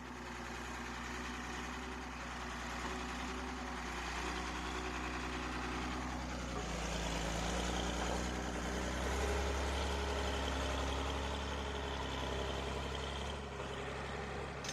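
An engine running steadily with a low hum, its pitch dropping a little about six to seven seconds in.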